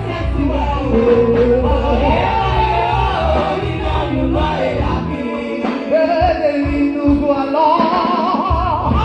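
Gospel-style song: singing with a wavering melody over instrumental backing. The low bass drops out for about three seconds in the middle and comes back near the end.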